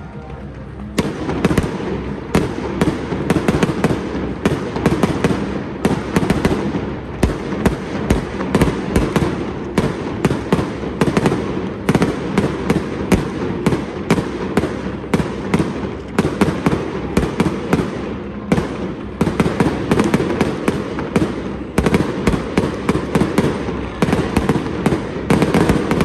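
Fireworks display: aerial shells bursting in a rapid, dense string of bangs and crackles, several a second, starting about a second in.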